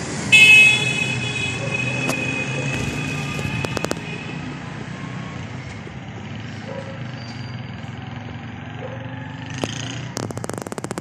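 Street traffic rumble from passing vehicles. A loud, steady high tone sounds about half a second in and fades away over the next few seconds, and a quick run of sharp clicks comes near the end.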